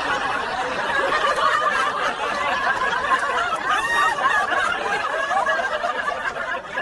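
Continuous laughter and snickering in reaction to a talking parrot's joke.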